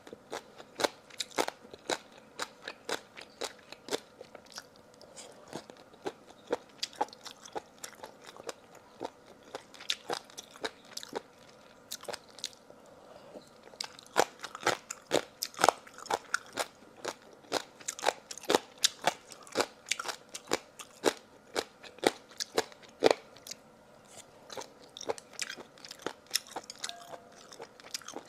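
Close-up chewing of crunchy food: a person biting and crunching, many sharp, irregular crunches several a second.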